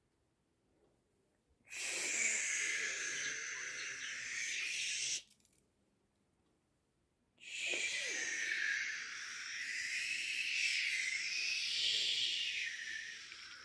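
Budgerigar chattering and warbling in two long stretches, the first starting about two seconds in and stopping abruptly, the second starting about seven seconds in and running on.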